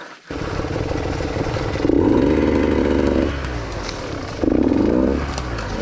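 Enduro dirt bike engine running under way, cutting in abruptly just after the start, with the throttle opened in louder surges about two seconds in and again about four and a half seconds in.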